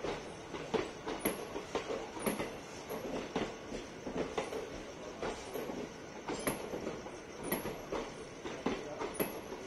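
Passenger coaches of an Indian Railways express rolling past as the train departs, their wheels clacking over the rail joints in a steady run of knocks over a low rumble.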